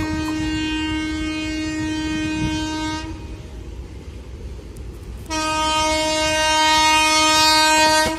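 Train horn sounding two long blasts of about three seconds each, both at one steady pitch, the second louder, over a low rumble of the train.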